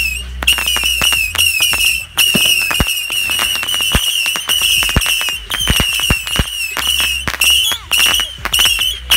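A rapid volley of whistling bottle rockets: high wavering whistles overlap one another, with many sharp cracks and pops throughout.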